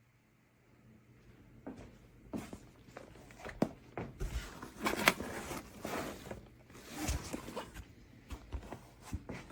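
Irregular handling noises: rustling, scraping and sharp knocks that start about a second in and come thickest around the middle.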